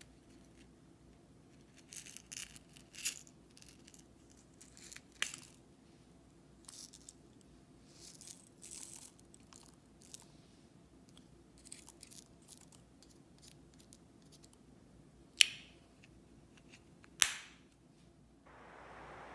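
Scattered scratchy crackles and clicks from a small plastic eyeshadow compact being handled and pressed into glittery slime, with two loud sharp clicks late on, then a steady hiss starting near the end.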